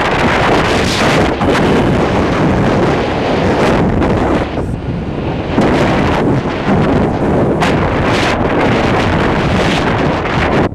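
Wind buffeting the microphone of a camera riding in a moving vehicle: a loud, gusting rush that swells and eases, with vehicle road noise beneath it.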